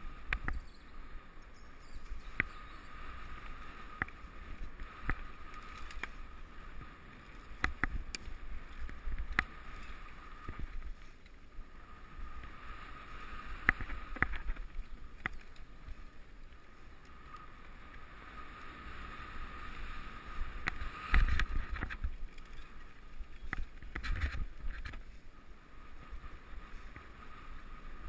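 Mountain bike ridden along a dirt singletrack, heard from a helmet camera: a steady low rumble of tyres and air on the microphone, with frequent clicks and rattles from the bike over bumps and a heavier jolt about three quarters of the way through.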